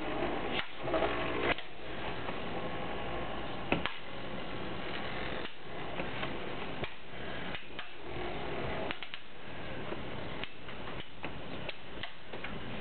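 Two metal Beyblade spinning tops, Rock Leon and Earth Eagle, spinning in a plastic stadium: a steady whir of their tips on the stadium floor, broken by irregular sharp clicks as the tops touch.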